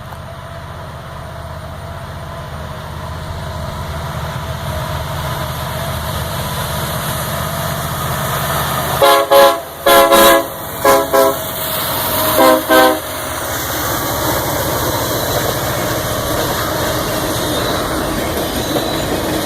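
Union Pacific diesel locomotive approaching with a low rumble, then sounding its air horn, several tones at once, in six blasts over about four seconds: two longer blasts, then two pairs of short toots. After the horn the train's rolling noise grows steadily louder as it passes.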